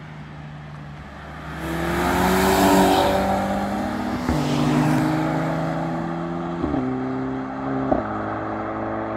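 Volkswagen Golf 6 GTI's turbocharged 2.0-litre four-cylinder under hard acceleration away from the listener, engine note climbing through the revs. It upshifts three times, with a brief sharp crack at each shift.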